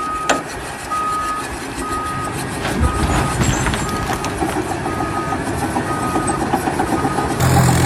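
Vehicle reversing alarm beeping steadily, about once a second, over a running engine. A sharp knock sounds near the start.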